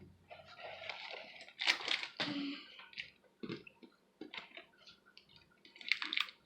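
Clear slime being squished and worked in the hands: wet squelches, a stretch of sticky hiss and many small clicking pops, loudest about two seconds in.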